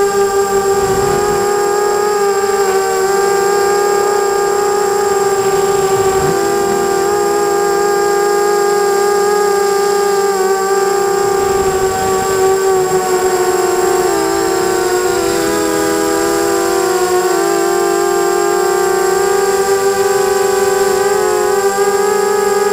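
Motors and propellers of a GT250 FPV racing quadcopter whining steadily in flight, the pitch wavering up and down in the second half as the throttle changes.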